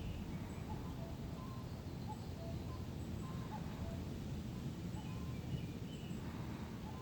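Steady low rumble of wind in the forest, with scattered faint, short bird chirps.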